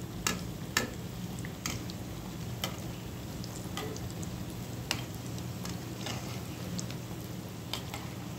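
Batter-coated, potato-stuffed bread sandwiches deep-frying in hot oil in a kadhai: a steady sizzle, with scattered sharp clicks as a metal spatula turns the pieces over.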